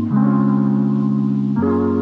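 Background music: sustained soft keyboard chords that change about every second and a half.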